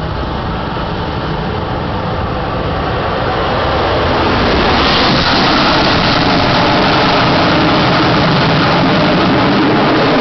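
Harrier's Rolls-Royce Pegasus jet engine running at high power for takeoff, a dense roar that swells about four to five seconds in and then holds at full loudness.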